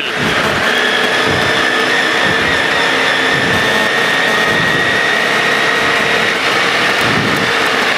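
GAZ rally car's engine heard from inside the cabin, held at steady high revs flat out on the run to the stage finish. The note eases off near the end.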